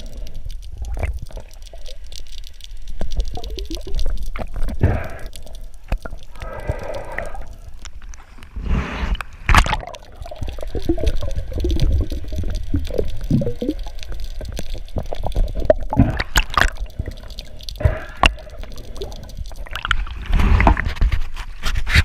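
Water sloshing and gurgling close around the microphone, in irregular splashes over a low rumble.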